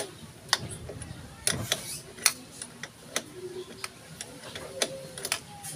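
Irregular sharp metallic clicks and taps of a hand wrench working the bolt on an SC Project slip-on muffler's mounting bracket, during removal of its silencer insert.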